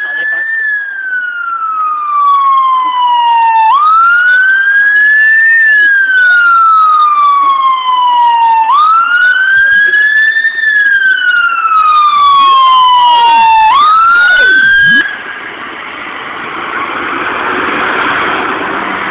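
Loud fire engine siren on a wail: each cycle rises quickly and then falls slowly over about five seconds, three full cycles in all. It cuts off suddenly about fifteen seconds in, leaving a rushing noise.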